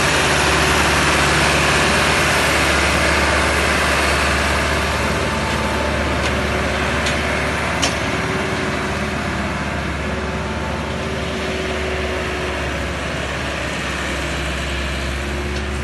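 Massey Ferguson 375 tractor's diesel engine running steadily while pulling a loaded trolley, fading slowly after about four seconds as it moves away. A short sharp click sounds about two-thirds of the way into the first half.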